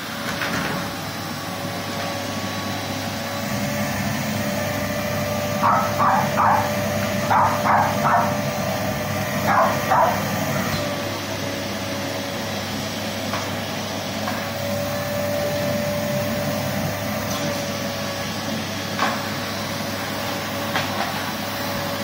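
Vacuum cleaner running steadily with a held whine, while a West Highland White Terrier barks at it in three quick clusters of sharp barks around six to ten seconds in, then once more near the end.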